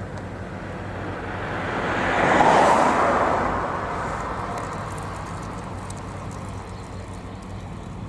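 Remote-controlled tracked flail mower's engine running steadily, with a louder rush of noise that swells to a peak a couple of seconds in and then fades.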